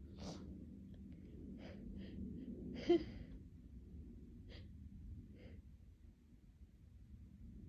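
A person's short breaths, sighs and gasps between sneezes: about half a dozen brief noisy puffs, with one sharp, louder burst about three seconds in.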